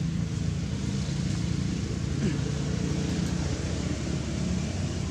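Steady low hum of an engine running, with an even background hiss.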